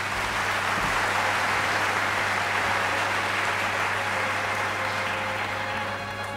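Large audience applauding in a concert hall, the applause dying down near the end.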